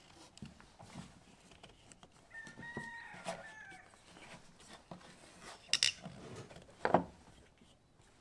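A chicken calls once in the background about two to four seconds in, a drawn-out call that falls slightly in pitch. Near the end, two sharp knocks of wood and metal pieces being set down on the workbench are the loudest sounds.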